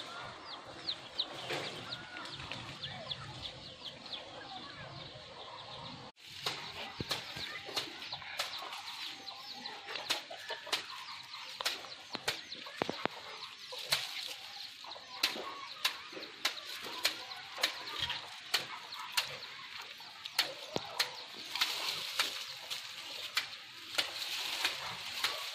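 Many sharp cracks and rustles of twigs and leaves as a small monkey clambers through dry brush, coming thick and fast after a short break about six seconds in, over birds chirping and chickens clucking.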